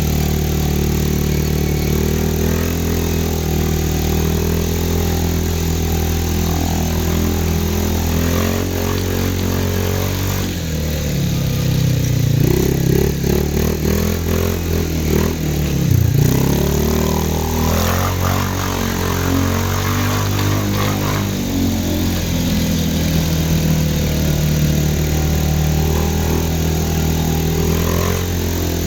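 CFMoto 500 ATV engine running at a steady speed. In the middle its pitch rises and falls for several seconds, dipping sharply once, then it settles back to a steady run.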